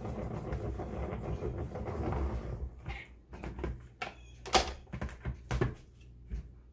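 Plastic salad spinner whirring as its basket of wet chopped lettuce spins, dying away about three seconds in. Then plastic clicks and knocks as the lid is taken off and the basket lifted out.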